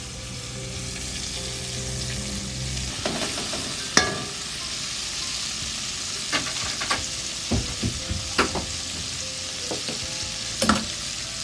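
Battered chicken pieces deep-frying in hot oil, a steady sizzle. Several sharp clicks come over it, the loudest about four seconds in.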